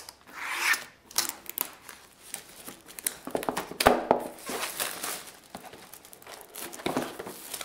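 Plastic wrapping and a cardboard box crinkling and rustling as a packaged laptop cooler is unpacked by hand, with a few sharp clicks and taps, the clearest about four seconds in.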